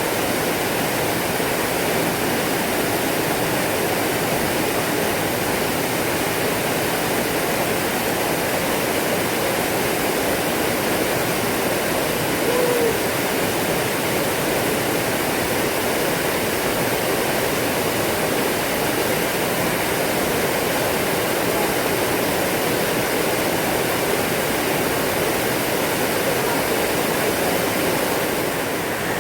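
Waterfall running: a steady, unbroken rush of falling water. A brief faint sliding note sounds about midway.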